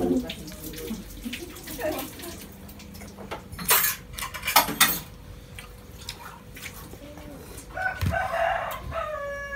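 A rooster crowing near the end, one long call with a slightly falling pitch. Around the middle come a few short, sharp noises, like water splashing or something clattering.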